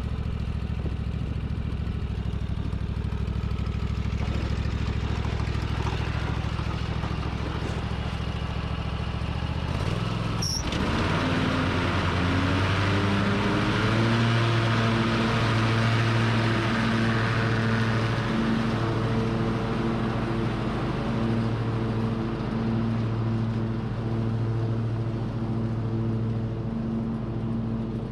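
Craftsman Pro Series lawn tractor engine running steadily at a low speed. About ten seconds in there is a click, then the engine speeds up and holds a higher, steady speed with a slight regular pulsing.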